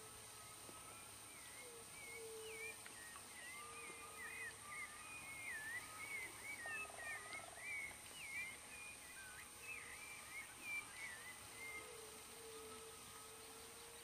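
Faint chorus of wild animal calls: many quick chirping calls, busiest in the middle, over repeated lower drawn-out notes, with a steady high hiss throughout.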